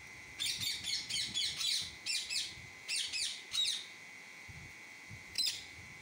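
Indian ringneck parakeet calling: a quick run of short, high chirps, each falling in pitch, for about three and a half seconds, then a single chirp near the end.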